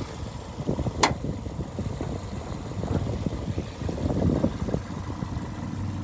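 Wind buffeting the microphone as a gusty, uneven low rumble, with a sharp click about a second in. A steady low hum starts near the end.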